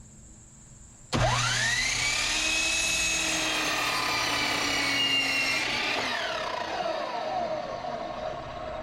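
Electric miter saw starting about a second in: its motor whine climbs quickly to full speed, holds steady for about five seconds while cutting a wood board, then falls in pitch as the blade winds down after the trigger is released.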